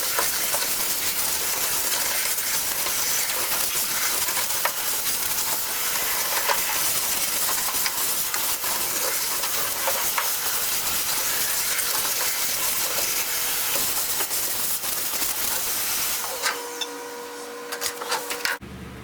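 A loud, steady hiss, like rushing air, that starts abruptly and holds even. It gives way near the end to a quieter stretch with a few faint steady tones.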